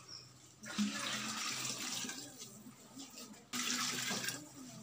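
Water poured from a clay pot into another clay pot, splashing in two pours: a longer one about a second in and a shorter one a little past three and a half seconds.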